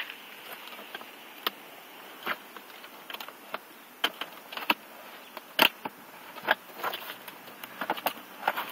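Irregular clicks and taps, about a dozen, as the fairing's panel flaps are pushed into their slots and the shell is handled.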